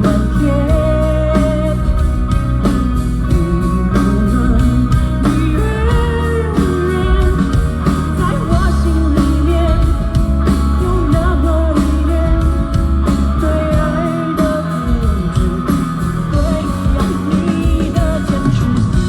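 Live rock band playing, with guitar and a steady drum beat, and a voice singing over it at times.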